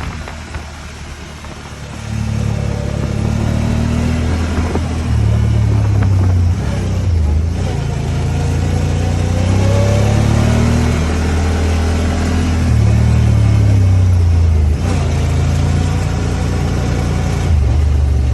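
Honda Talon 1000R side-by-side's parallel-twin engine under throttle, quieter for the first two seconds, then loud, its pitch rising and falling as it revs.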